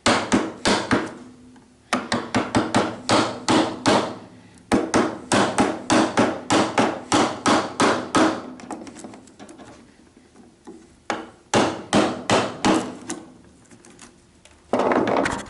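A mallet striking a bench chisel, chopping out a mortise in timber: quick runs of sharp knocks, about three a second, with short pauses between runs. A short burst of scraping comes near the end.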